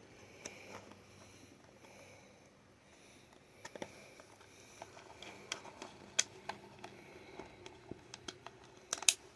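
Small scattered clicks and scrapes of a thumbtack being worked into the wire-release slot of a table fan's push-in speed switch to free a wire, with a sharper double click near the end.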